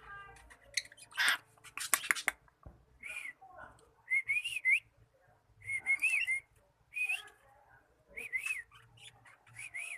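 Cockatiel whistling a string of short phrases that rise and fall, roughly one a second. A loud, harsh, noisy burst and a few sharp clicks come about a second in.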